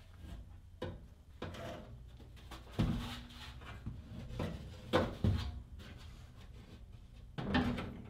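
Sheet-metal blower housing being pushed and slid into an air handler cabinet: a series of scrapes and metal clunks as it is worked along its rails, the loudest knocks about three and five seconds in.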